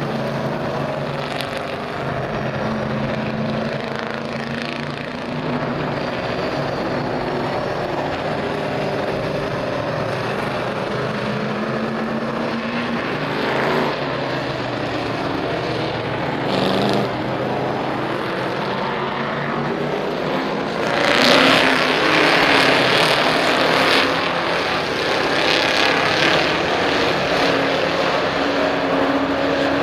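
Bandolero race car engines running steadily, growing louder about two-thirds of the way through.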